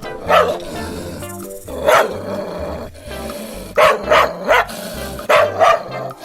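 Dog barking: a single bark, then another, then two quick runs of three barks, over background music.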